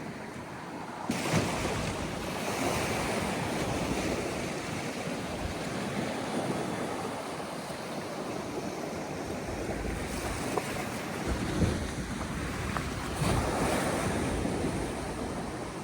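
Sea waves breaking on a beach, the surf swelling louder every few seconds, with wind buffeting the microphone.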